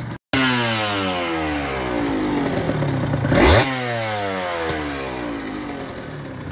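Aprilia RS250's two-stroke V-twin heard at its twin exhaust silencers, revs sinking slowly toward idle, then blipped sharply once about three seconds in before falling away again. The sound cuts out for a moment at the very start.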